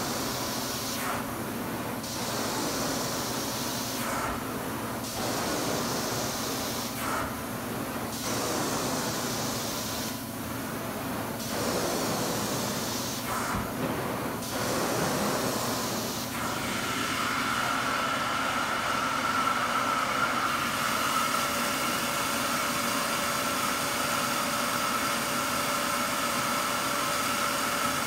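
Hot-water extraction carpet-cleaning wand working the carpet: a hiss of spray and suction in strokes of a few seconds, with short breaks between strokes. About two-thirds of the way through it changes to a steady vacuum rush with a high whistle as the suction runs on.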